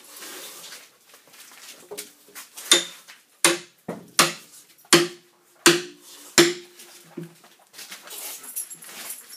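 Axe chopping into a log, juggling off wood along the scored face: about eight sharp blows, roughly one every 0.7 s, from about two seconds in until about seven, several followed by a short metallic ring.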